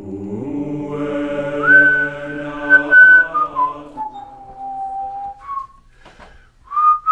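A chord of voices held like a choir for about four seconds, with a high note over it, then a person whistling a few short notes.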